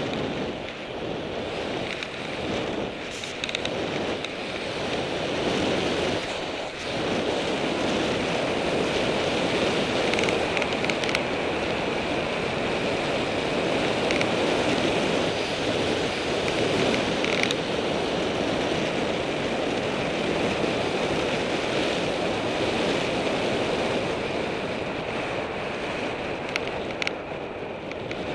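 Wind rushing over the microphone of a bike-mounted camera on a fast downhill ride, mixed with tyre noise on rough asphalt. A few short sharp rattles come through, around the middle and near the end.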